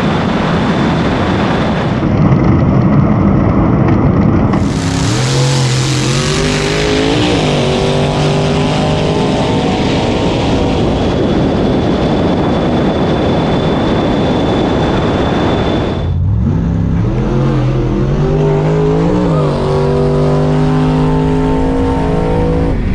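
Drag-race run of a Tesla Model S Plaid against a rail dragster: a loud rush of vehicle noise, then a pitched drone that rises in steps and levels off. After a sudden cut about 16 seconds in, the same rise comes again.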